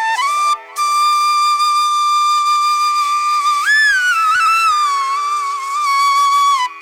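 Instrumental music: a flute melody of long held notes that slide up and down, over a steady drone. It breaks off briefly about half a second in.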